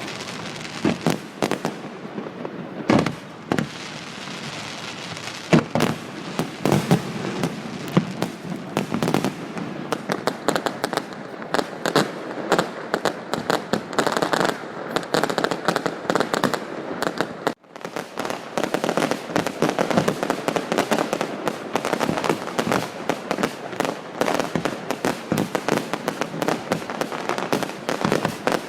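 Fireworks display going off continuously: rapid bangs and dense crackling, with several heavier booms in the first few seconds and a momentary break about two-thirds of the way through.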